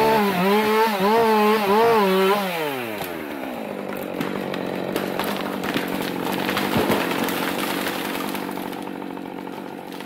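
Husqvarna 550 two-stroke chainsaw running at high revs with its pitch wavering, then let off about two and a half seconds in and winding down. The felled spruce then cracks and crashes through the branches of the stand for several seconds, with many sharp snaps, fading away.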